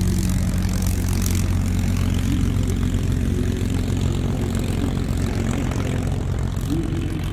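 Propeller airplane engine running steadily, a low drone with a dense hiss over it, as the plane flies.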